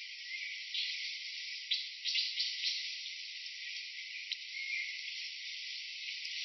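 Steady high insect-like drone, thin with no low end, with a few short clicks and rustles, a cluster of them about two seconds in.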